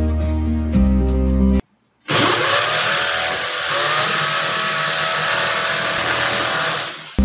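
Background acoustic guitar music, then after a short break a corded electric drill grinding into an old, hard cement wall for about five seconds, its motor whine rising as it speeds up about two seconds in and again a couple of seconds later.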